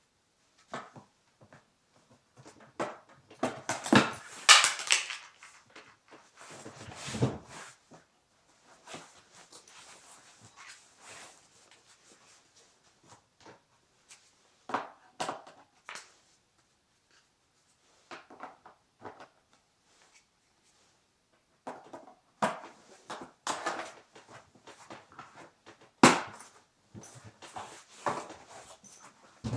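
Irregular clicks, knocks and scraping from objects being handled, in clusters with pauses between them; the loudest knocks come about four seconds in and again near the end.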